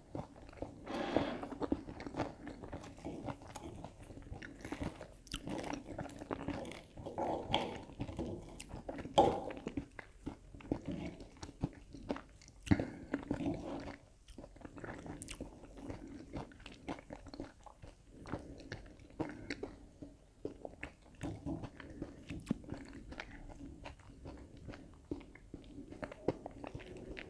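A person chewing and crunching food close to a clip-on microphone: irregular crunches and wet mouth sounds, with a few louder bites.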